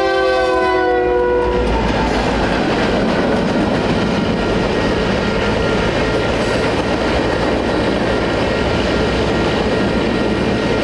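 Union Pacific freight train's locomotive horn sounding as the train passes, its chord sagging slightly in pitch and cutting off about two seconds in. Then comes the loud, steady rolling noise of the freight cars' wheels on the rails as the covered hoppers go through the crossing.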